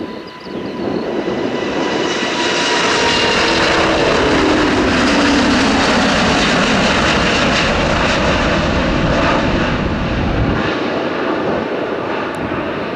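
Wide-body jet airliner's engines at takeoff thrust as it climbs past: the noise swells over the first two seconds, with a tone sliding down in pitch as it goes by. A heavy low rumble follows, then it eases off near the end.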